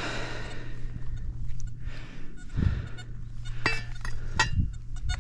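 Dry leaves rustling underfoot, then a steel T-handled digging tool clinking sharply against stones twice near the end, each strike ringing briefly. A steady low hum runs underneath.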